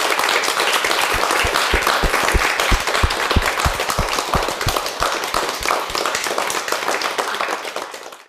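Studio audience applauding, a dense patter of many hands clapping that fades out near the end.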